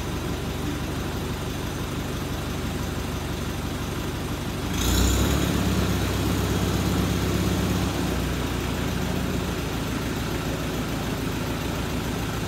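Farmall C tractor's four-cylinder gasoline engine running steadily. About five seconds in it gets louder for about three seconds, then settles back to its earlier level.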